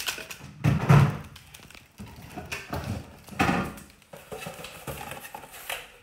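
Knocks and thuds with rustling as plastic and cardboard packing is pulled out of a refrigerator. There are a few separate louder handling noises, about a second in and again midway.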